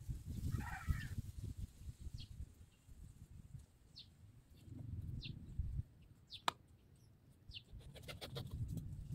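Chickens and birds calling: short high falling chirps about once a second, with a few clucks near the start, over a gusty low rumble of wind on the microphone. A sharp click comes about two-thirds through, and light knocks near the end as the pipe and bucket are handled.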